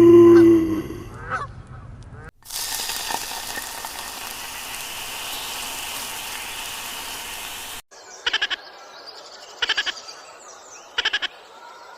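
A goose honks loudly once at the start. After it comes about five seconds of steady hissing ambience that cuts off suddenly, then small birds chirping, with three short bursts of rapid chirping about a second and a half apart.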